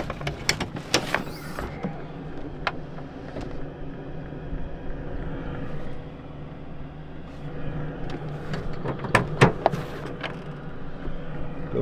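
A steady low hum runs throughout, with scattered sharp clicks and knocks from handling. The loudest is a cluster of knocks a little after nine seconds in.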